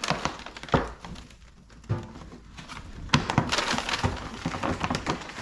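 Gift packaging being handled and torn open by hand: irregular crinkling, crackling and rustling, sparse at first and busier from about three seconds in.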